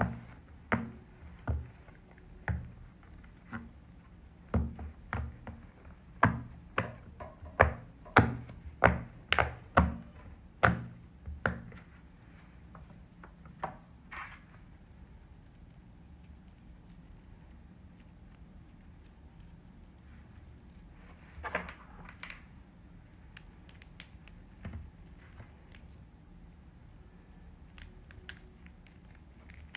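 Fidget toys being pressed and handled: a quick run of sharp pops and clicks, about two a second for the first twelve seconds, then only a few scattered clicks and a brief rustle.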